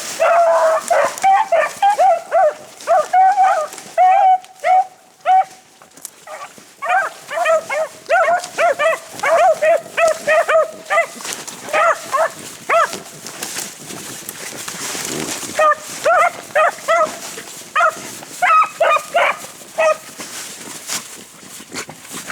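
A pack of rabbit beagles baying on a rabbit's trail: many short, pitched yelping calls from several dogs overlapping, easing off briefly about six seconds in and again around thirteen to fifteen seconds in. The baying is the sign that the dogs are on the rabbit's scent and running it.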